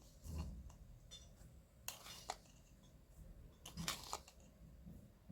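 Faint, brief scrapes and rustles of a spoon scooping granulated sugar and tipping it into a bowl of flour, repeated a few times.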